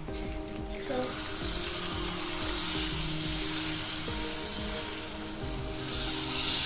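Jalebi batter sizzling as it is piped in spirals into hot oil, the frying hiss starting about a second in and growing louder near the end as more batter goes in.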